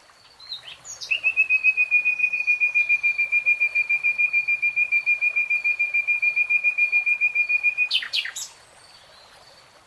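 A bird singing one long, even trill on a single high pitch, about nine notes a second, starting about a second in and lasting some seven seconds, ending with a few quick sliding notes.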